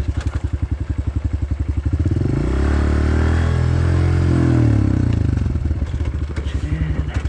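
Honda CRF125F dirt bike's single-cylinder four-stroke engine running at low revs with a rapid putting beat, revving up about two seconds in, holding briefly, and easing back down to low revs near the end.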